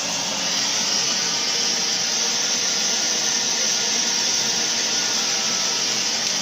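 Steady hissing rush from the wok station: a gas burner under a wok of frying noodles.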